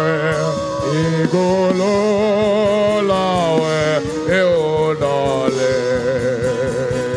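Worship music: a singing voice holding long, wavering notes over sustained instrumental backing.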